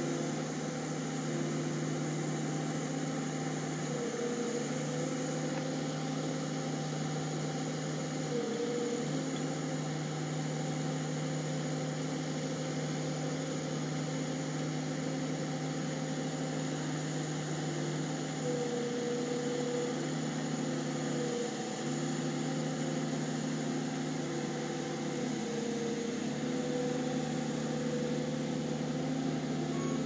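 New Holland LS170 skid steer's diesel engine running steadily under load, its pitch dipping and shifting briefly several times as the loader works.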